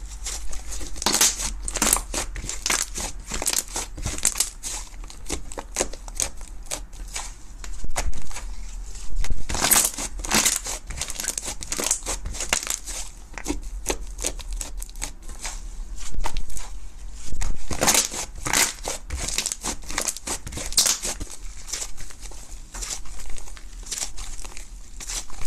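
White slime being squeezed, pressed and stretched by hand, giving a dense run of wet crackles and pops, with several louder flurries along the way.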